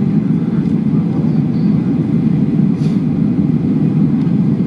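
Steady low rumble of an airliner's engines and rushing air, heard inside the passenger cabin on the approach to landing.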